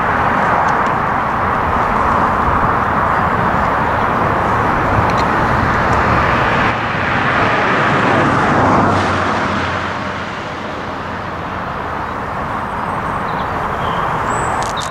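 Steam-hauled express hauled by 35028 Clan Line, with a diesel locomotive on the rear, pulling away along the track: a steady, loud rumble of the moving train that eases off about ten seconds in.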